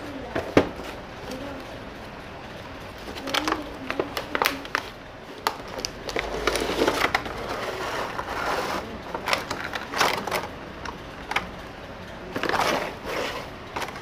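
Toy packaging being handled: the cardboard box and its plastic tray rustling and crinkling, with scattered clicks and knocks and a sharp knock about half a second in.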